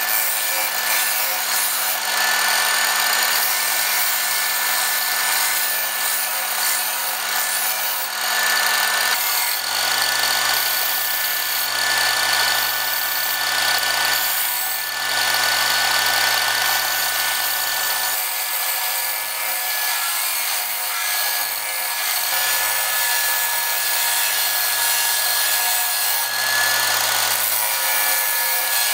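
Bench grinder running with a steel chef-knife blade held against its wheel, grinding the edge: a steady rasping hiss over the motor's hum, swelling and easing slightly as the blade is pressed and moved.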